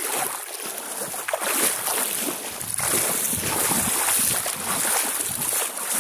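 Muddy floodwater rushing and splashing steadily against a person's legs as they stand in the flow.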